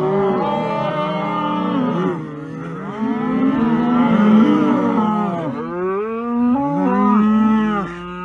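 An animal's long, wavering calls, one after another with short breaks between them.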